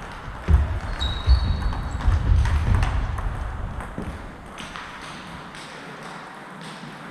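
A table tennis point ending: a ball strike and knocks with heavy low thuds in the first three seconds, and a brief high squeak, then the quieter noise of the sports hall between points.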